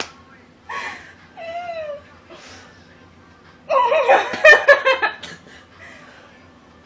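Two women giggling and laughing in short bursts, one with a falling squeal, then a louder fit of laughter about four seconds in.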